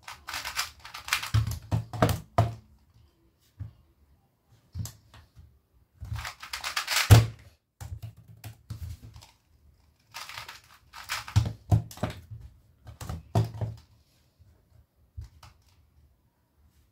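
A 2x2 speedcube turned fast in three bursts of plastic clicking and clacking, with knocks as it is handled, the loudest about seven seconds in. Lighter clicks in between come from a laptop keyboard being tapped.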